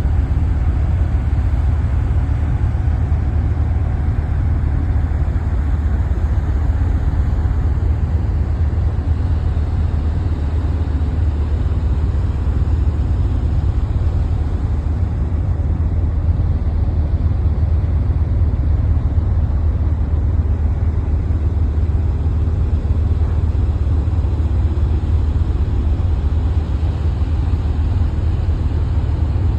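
A truck driving along: a steady low engine and road rumble with no change in speed.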